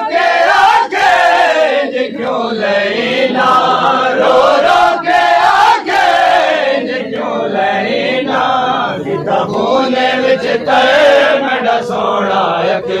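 Men's voices chanting a noha, a Shia mourning lament for Ali Akbar in Saraiki/Punjabi, in unison, the melody rising and falling without a break.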